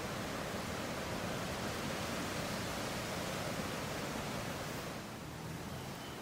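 Strong wind blowing through trees in fresh leaf, the leaves and branches rustling against each other in a steady rush that eases a little about five seconds in.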